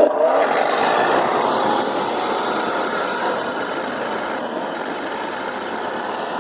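Battery-powered remote-control model car running along the road: electric motor whine and tyre noise, a broad whirring that grows steadily fainter as the car drives away.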